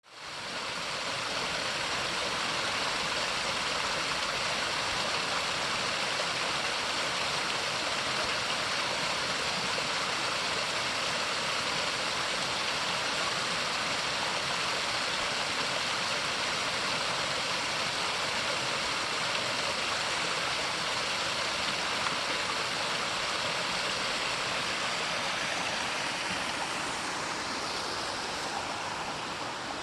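Mountain valley stream flowing steadily, an even rushing of water that fades in over the first second.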